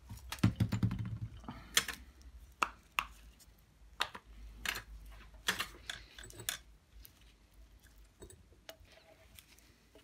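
Irregular small metallic clicks and clinks from a bicycle rear hub being taken apart by hand, its axle, cone and loose ball bearings knocking against the hub shell, with a low bump about half a second in.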